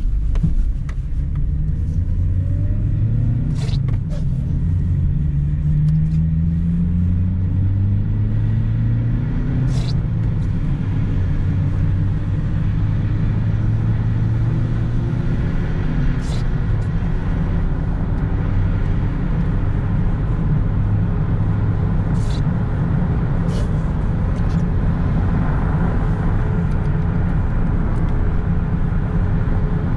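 Mitsubishi Lancer's 1.6-litre 4G18 four-cylinder engine under way. Its pitch climbs over the first several seconds as the car accelerates, then holds steady at cruise under constant tyre and road noise. A few brief knocks come from the road.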